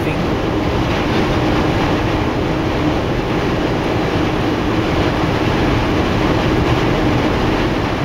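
Steady road and wind noise inside a car cabin at highway speed: a loud, even rumble from the tyres and the air rushing past, with a steady low hum.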